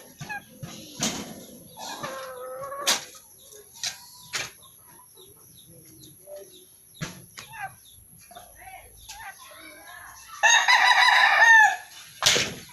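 A rooster crows once, loud, about ten seconds in, holding for about a second and a half before falling away at the end. Scattered knocks and clicks, and a shorter call around two seconds in, come before it.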